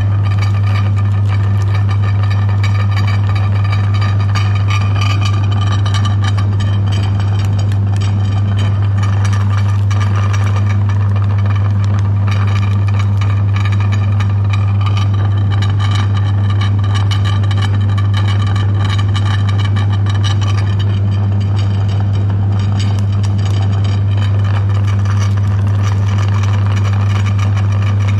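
Electric meat grinder running with a steady low hum while it grinds chocolate-coated ice cream bars fed into its hopper.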